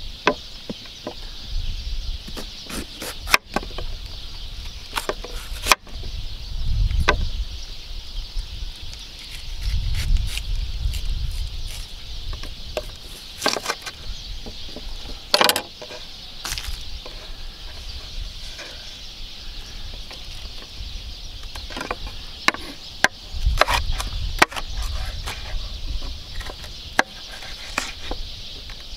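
Chef's knife cutting a red pepper on a wooden cutting board: irregular sharp taps of the blade against the board, over a steady high hiss.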